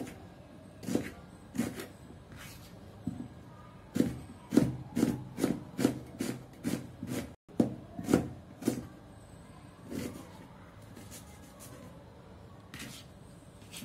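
Knife slicing onions on a wooden chopping board: a run of sharp taps of the blade on the board, about three a second in the middle, more spread out near the start and end.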